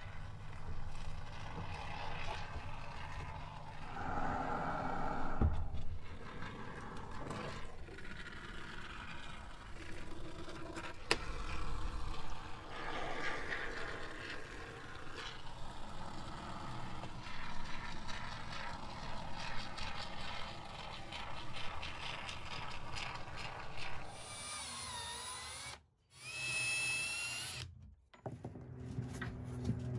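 Canned spray-foam insulation hissing from its straw, then a cordless drill driving screws into a wooden frame, its motor whine rising and falling in short runs near the end.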